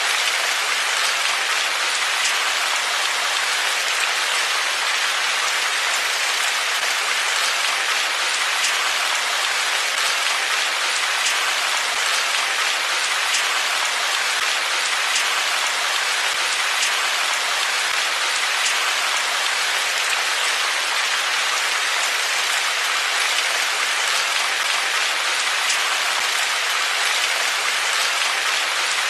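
Steady rain falling: an even, unbroken hiss with faint ticks of individual drops.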